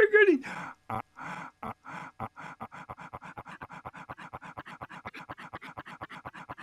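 A man's voice opens with a loud cry that falls in pitch. Then a short breathy snippet of it is edited into a stutter loop, repeating faster and faster from about once a second to about seven a second.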